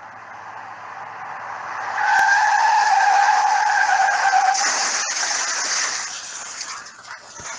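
Car tyres screeching in a long skid. The noise builds for about two seconds and holds a loud squeal at a steady pitch for a couple of seconds. It then turns to a rougher, hissing scrape and fades away.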